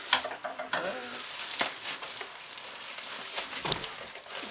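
Plastic packaging and bubble wrap rustling and crinkling as a parcel is opened by hand, with a few sharp clicks and taps, the loudest near the end.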